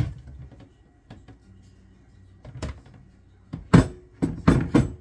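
Kitchenware knocking and clattering as batter is scraped from a mixing bowl into a baking pan. There is a knock at the start, another about two and a half seconds in, and four more in quick succession near the end.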